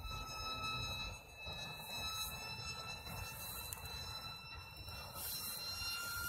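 Electric motor and propeller of a 27-inch Sphinx FPV flying wing making a fast pass, heard as a steady high whine that begins to get louder right at the end as the wing comes closer. Wind rumbles on the microphone.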